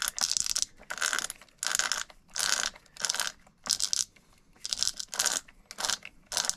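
Arrma Big Rock's gear mesh turned back and forth by hand as freshly injected grease is worked into the gears. It makes a rhythmic rasping stroke about twice a second.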